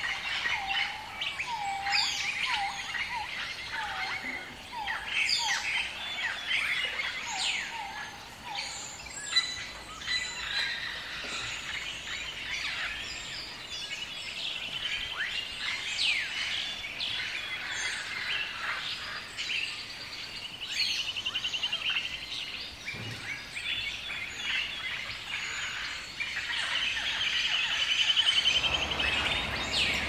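Many birds calling together: a run of short repeated falling notes over roughly the first nine seconds, above a mix of higher chirps, whistles and quick trills.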